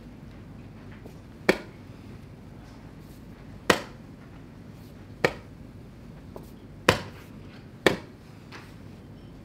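Blitz chess being played: sharp knocks of the chess clock's buttons being slapped and pieces set down on a wooden board, five loud ones at irregular intervals of one to two seconds with a fainter tap among them.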